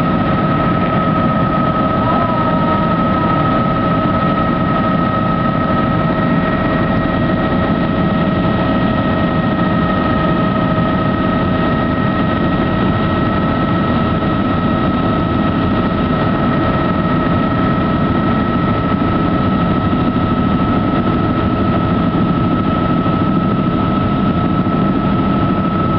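Helicopter cabin noise in steady flight: constant engine and rotor noise with a steady high whine over it.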